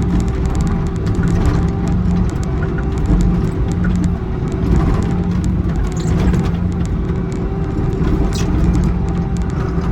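Excavator's diesel engine running steadily at working speed while digging, with a few light clicks and knocks.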